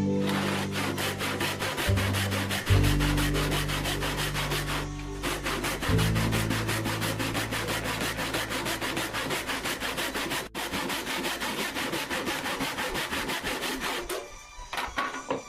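Wood being cut by hand along the length of a board, a resaw: a toothed hand tool rasps through the grain in quick, even strokes, with a short pause about five seconds in. Soft guitar music plays underneath.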